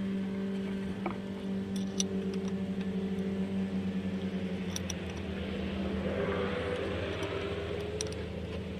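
A steady machine hum, with a few light clicks about 2, 5 and 8 seconds in.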